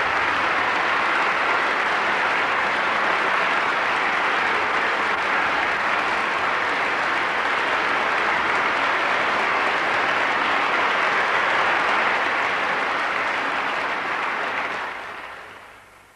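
Theatre audience applauding steadily, a dense wash of clapping that fades away near the end.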